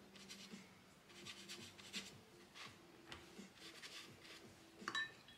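A flat paintbrush stroking watercolour paint across paper in a series of faint, soft strokes. A brief clink with a short ring comes near the end.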